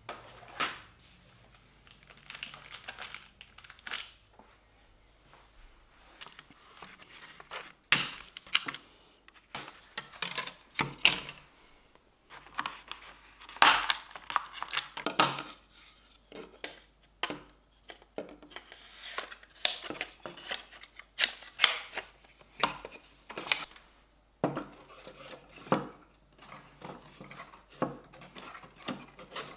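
Thin plywood pieces of a flat-pack decorative tree being handled and slotted together: irregular light knocks, taps and scrapes of wood on wood and on the table, with some rustling. The sharpest knocks come about 8 and 14 seconds in.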